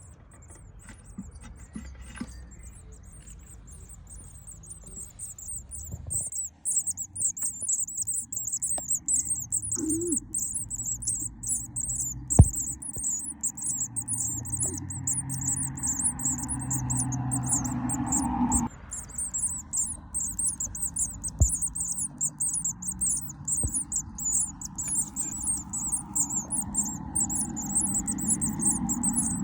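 Small birds chirping continuously in a fast, high-pitched chatter, over rustling and a few light knocks, the sharpest about twelve seconds in.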